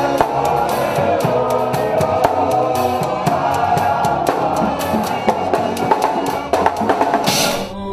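Group of men singing together to drums and percussion keeping a steady beat, with a short burst of hiss near the end.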